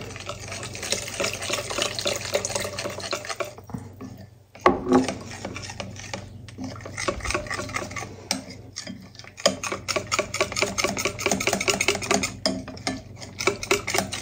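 Wire whisk beating thin crepe batter in a bowl as milk is worked in: a fast, steady run of clicking and sloshing strokes, with a short pause about four seconds in.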